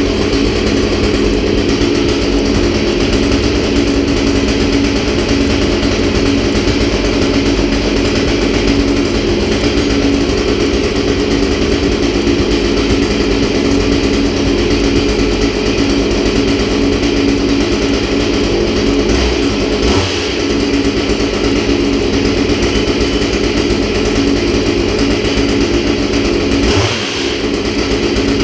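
A new STIHL one-handed top-handle chainsaw on its first start, its small two-stroke engine running steadily at an even pitch. There is a short dip in level near the end.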